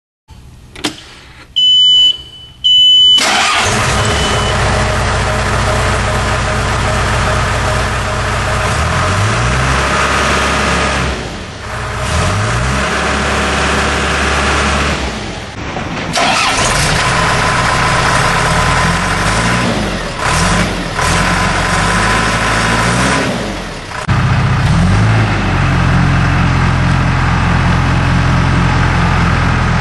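A 2007 John Deere 310J backhoe loader's four-cylinder diesel starts about three seconds in, just after a click and two short beeps, and catches at once. It then runs with its engine speed rising and falling several times.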